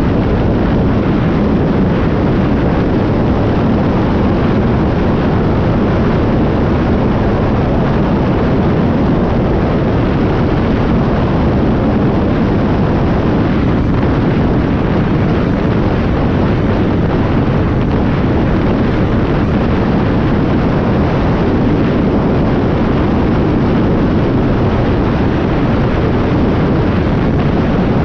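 UTV (side-by-side) driving along a sandy dirt track: a steady, loud rush of engine and tyre noise mixed with wind buffeting the microphone.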